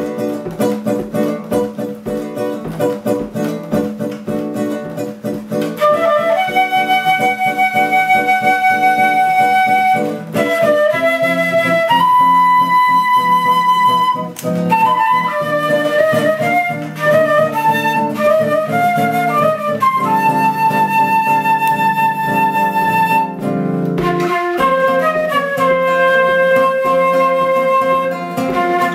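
Flute and classical guitar duet: the guitar plays a rhythmic accompaniment alone, and about six seconds in the flute comes in over it with a melody of long held notes.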